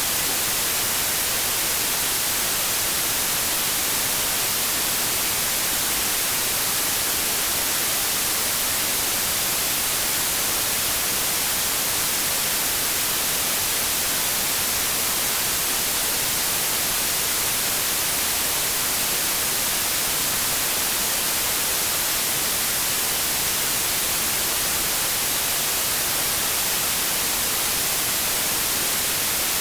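Steady hiss of TV static from a television tuned to no station, an even white noise that stays unchanged throughout and leans toward the high end.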